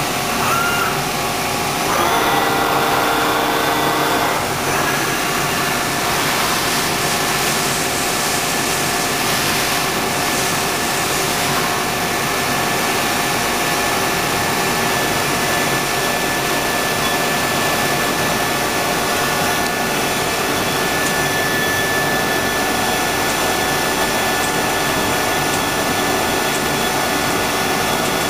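Dainichi MG75 CNC lathe running under power, a steady machine whine made of several held tones. The tones change about two seconds in and again near five seconds, and a hiss rises and falls between about six and twelve seconds.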